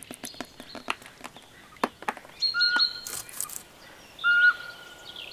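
Eurasian pygmy owl calling: two short, level whistles about a second and a half apart. They follow a run of sharp clicks in the first two seconds.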